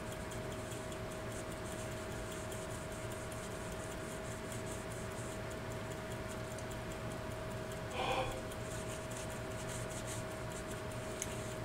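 Mappin and Webb carriage clock movement ticking fast and evenly, under a faint steady hum. A brief louder sound comes about eight seconds in.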